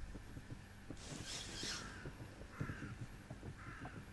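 A bird calling three times, about a second apart, over a gust of wind on the microphone about a second in.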